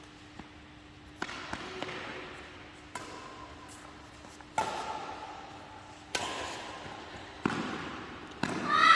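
Badminton rally: rackets striking the shuttlecock about six times, roughly a second and a half apart, each hit a sharp crack that fades away.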